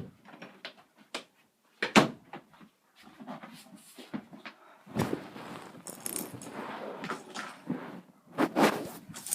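Rummaging: small objects being handled and moved, a string of clicks and knocks with a sharper knock about two seconds in, and a stretch of rustling clatter from about five seconds to eight.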